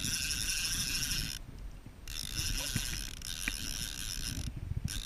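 Abu Garcia baitcasting reel being cranked to wind in a hooked fish, its gears whirring in two spells with a short pause between, and stopping again shortly before the end.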